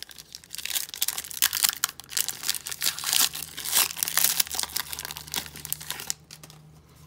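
Foil wrapper of a hockey card pack crinkling and tearing as it is pulled open by hand. The crackling dies down about six seconds in as the cards come out.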